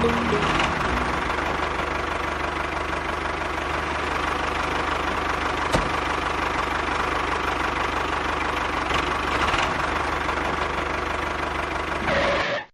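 Small motor and gears of a DIY model tractor running steadily with a whirring rattle, cutting off suddenly near the end.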